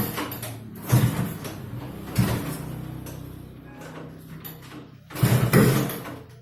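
Engine upgraded to 200cc being revved in short throttle blips, about a second in, again a little after two seconds, and a longer one a little after five seconds, each falling back toward idle.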